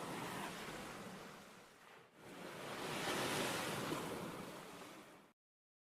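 Sea waves washing in as a sound effect: one surge easing off, then a second, louder surge. It cuts off abruptly into total silence about five seconds in.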